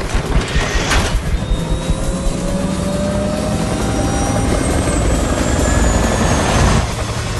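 Attack helicopter's rotor and turbine engine running as it lifts off, a dense low rumble with a whine that rises slowly in pitch through the middle and a thin high whistle that falls in pitch.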